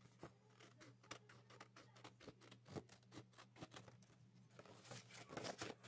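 Scissors cutting a paper pattern: faint, irregular small snips and clicks as the blades close along the line, over a low steady hum.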